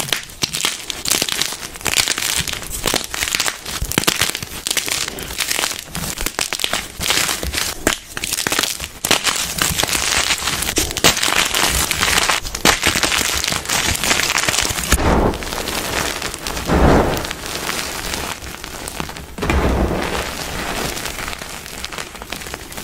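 Blocks of gym chalk (magnesium carbonate) snapping and crumbling in bare hands: dense crackling crunches as chunks break. About fifteen seconds in, the sound turns softer and more powdery as the hands squeeze loose crushed chalk.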